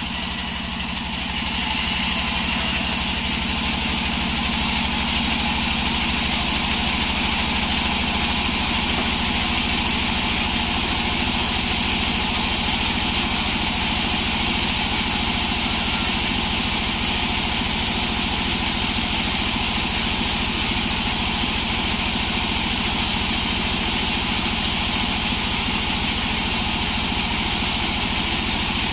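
Sawmill sawing a log of saga wood: a steady engine drone under a high, even whine from the saw, growing louder about a second and a half in and then holding steady.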